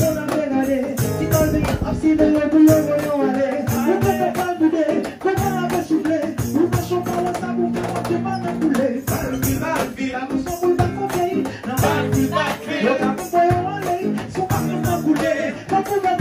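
A man singing into a microphone while strumming a nylon-string classical guitar, over a steady rattling rhythm.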